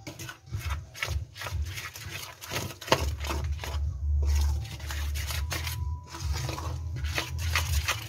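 A spoon scraping and stirring through flour and warm water in a stainless steel bowl, mixing pholourie batter in quick, irregular strokes, with one sharper scrape about three seconds in.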